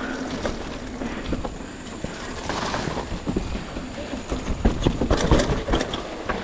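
Ride noise on a rough off-road trail: wind buffeting the microphone under a stream of knocks and rattles from the bike going over the bumpy ground, growing louder and busier in the second half.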